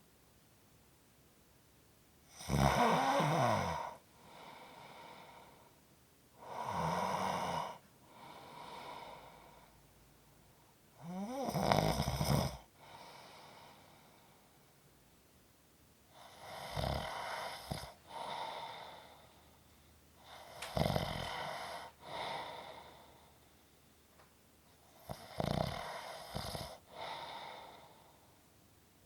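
Snoring: six loud snores about every four to five seconds, each followed by a quieter breath.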